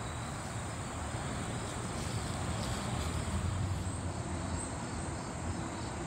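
Outdoor ambience: a steady low rumble with a faint, high, continuous insect trilling, typical of crickets.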